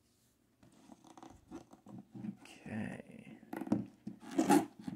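Hands working the tight lid of a rigid cardboard record box set off its base. The lid rubs and squeaks against the box in short, uneven scrapes that grow louder, strongest near the end.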